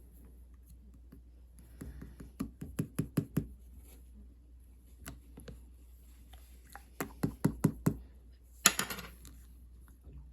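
Sky-blue clear slime being pressed and kneaded by hand, giving two runs of sharp sticky clicks and pops, about four to five a second, then a short crackling squish near the end.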